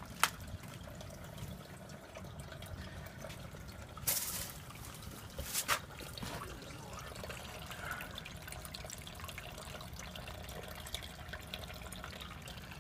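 A small stream of water trickling and running steadily, with three short knocks near the start and about four and six seconds in.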